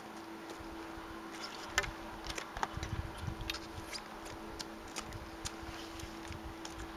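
A steady low buzz runs throughout, with scattered small clicks and taps of gear being handled in the hands, the sharpest about two seconds in.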